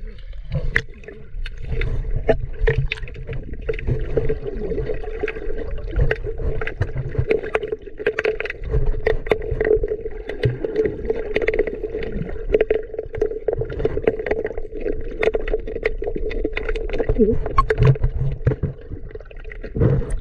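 Underwater sound picked up by a submerged camera: a muffled low rumble with a steady hum and many scattered small clicks and knocks, from a diver moving along a rocky riverbed.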